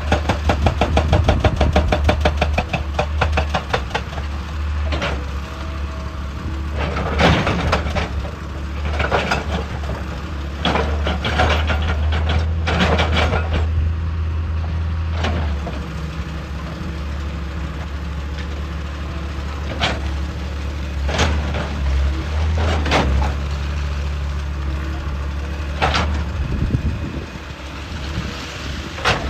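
Hydraulic excavator's diesel engine running steadily, with rapid regular knocking for the first few seconds and then a string of separate short bursts of clanking and scraping as it works rock.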